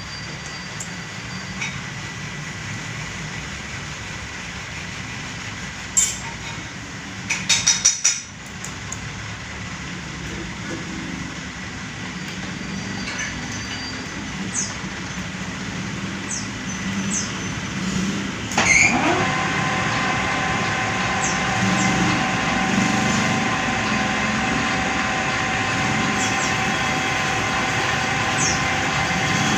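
Metal lathe running as it cuts an engine block head, with a few sharp knocks about six to eight seconds in. About nineteen seconds in, a steady whine of several pitches sets in and holds, and the noise gets louder.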